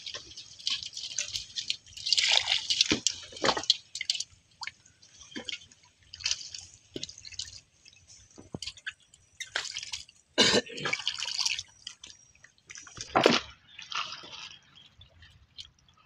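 Water splashing and dripping in irregular bursts, with two heavier splashes about ten and thirteen seconds in.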